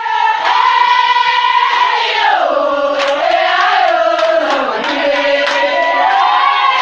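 A crowd singing together in celebration, loud voices on a high held note that slides down about two seconds in and climbs back near the end.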